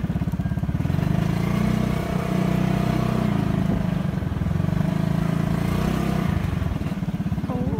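Motorcycle engine running under way, its pulsing note rising and easing a little as the ride goes on.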